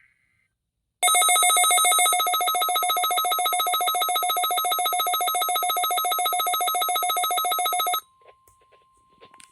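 NOAA Weather Radio warning alarm sounding for the weekly test: a shrill electronic tone pulsing rapidly. It starts about a second in and cuts off sharply about seven seconds later, leaving a faint steady tone.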